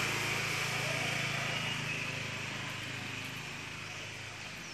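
A motorbike engine running as it passes by, its hum fading as it moves away.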